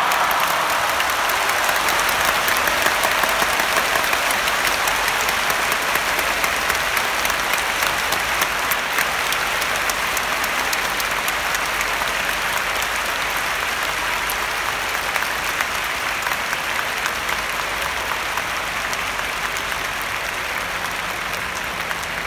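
Sumo arena crowd applauding the end of a bout: dense, sustained clapping that slowly dies down.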